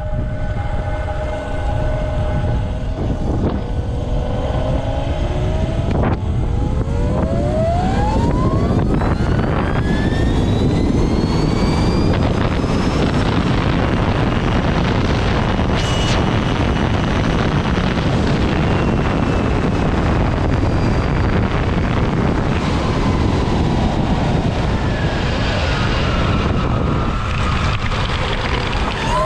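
Electric go-kart's twin Castle 2028 800KV brushless motors whining under acceleration, the pitch climbing steeply for several seconds into a loud rushing noise at speed. Near the end the whine falls as it slows, then starts to rise again.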